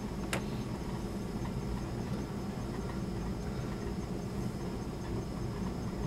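A single click of a button being pressed on a Dell laptop, then a steady low hum and hiss of background noise.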